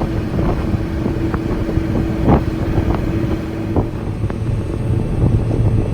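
Canal tour boat's engine running under way, with wind buffeting the microphone. A steady hum in the engine noise stops about four seconds in.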